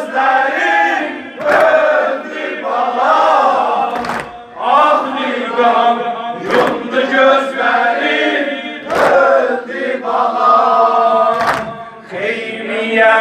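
A crowd of men chanting a Shia Muharram mourning lament (nowheh) together. A loud collective chest slap lands about every two and a half seconds, five times: the beat of sineh zani, ritual chest-beating.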